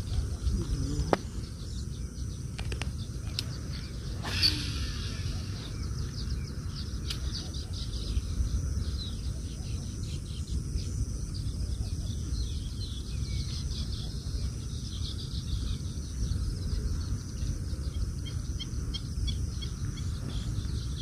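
Small birds chirping at scattered intervals over a steady low rumble, with a short rushing sound about four seconds in.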